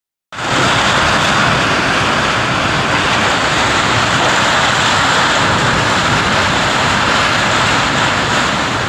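Storm wind blowing hard: a loud, steady rushing noise, with wind buffeting the microphone.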